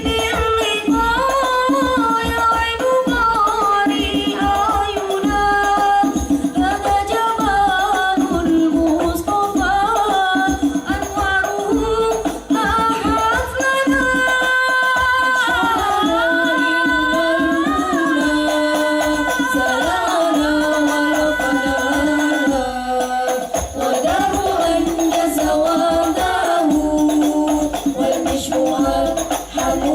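Al-Banjari hadrah ensemble performing a sholawat: a voice sings a gliding, ornamented melody over a dense, steady rhythm of rebana frame drums.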